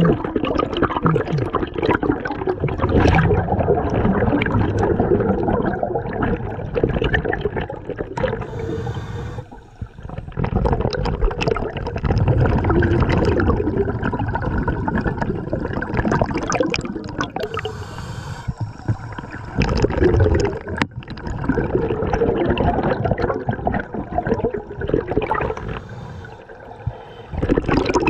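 Scuba diver breathing through a regulator underwater: long rumbling streams of exhaled bubbles, broken by three short lulls.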